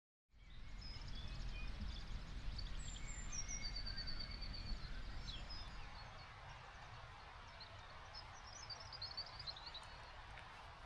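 Small birds calling and singing over a faint, steady low rumble of outdoor ambience. Scattered short chirps, a rapid trill about four seconds in, and a quick falling series of notes near nine seconds.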